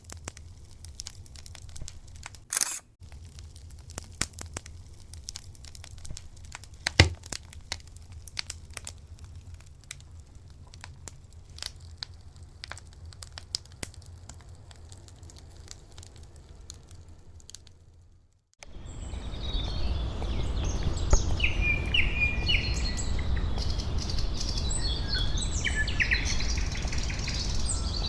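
Outdoor ambience in two parts separated by abrupt cuts. First scattered clicks and crackles over a low rumble, then, after a brief drop-out, small birds chirping repeatedly over a louder steady rumble.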